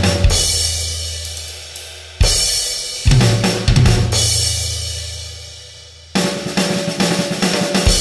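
Background music played on a drum kit: a few heavy hits with cymbal crashes left to ring out for a couple of seconds each, then a busier run of hits near the end.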